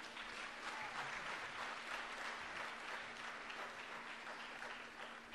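Audience applauding, swelling in the first second and tapering off near the end.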